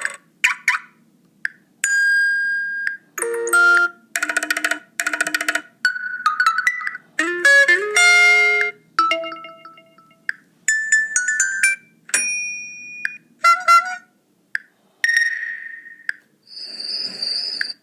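Huawei P10 lite built-in ringtones and alert tones played one after another: about a dozen short electronic chimes, beeps and little melodic jingles, each about a second long with brief gaps between them.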